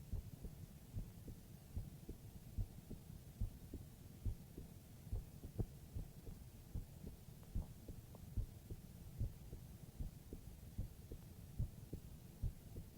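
Human heartbeat heard close up: soft low thumps in lub-dub pairs, steady at roughly 70 to 75 beats a minute.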